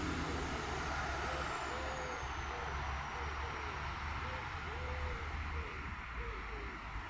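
An aircraft passing overhead: a steady rumble with a faint high whine that falls slowly in pitch over the first three seconds.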